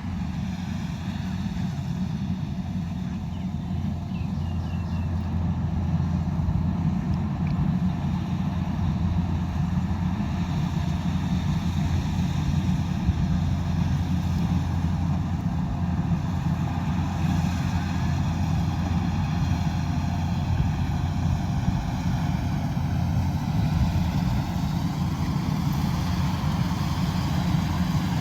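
Combine harvester's diesel engine and threshing machinery running steadily under load, growing slightly louder over the first few seconds.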